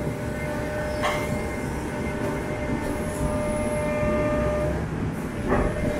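Hydraulic excavator running under load with a steady hydraulic whine as its demolition crusher jaws open and close on the concrete ramp. Two sharp knocks of the attachment on concrete come about a second in and near the end.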